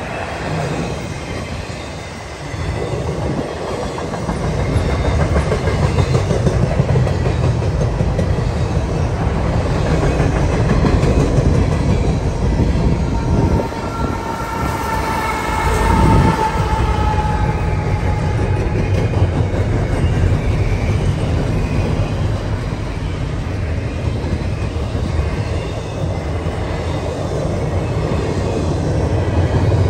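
Double-stack container train of well cars rolling past, with a steady rumble and clatter of steel wheels on the rails. About halfway through, a mid-train CSX diesel locomotive passes, bringing a louder surge and a brief high whine.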